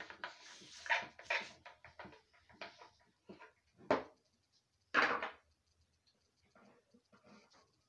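Irregular clicks, knocks and rustles of wires, a splitter switch and other wiring parts handled on a wooden table, with two louder knocks about four and five seconds in.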